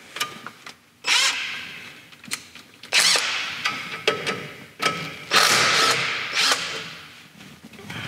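Cordless Hercules impact driver run in four or five short bursts on a brake wheel-cylinder bolt, each starting suddenly and dying away, with small metal clicks between.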